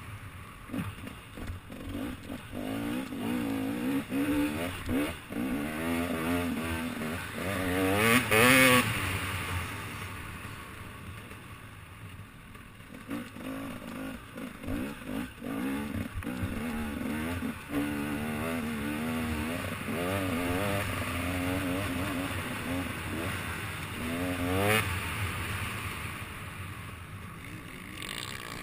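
Off-road motorcycle engine revving up and down over and over as the rider accelerates out of corners and backs off into them. The loudest bursts of throttle come about eight seconds in and again near twenty-five seconds.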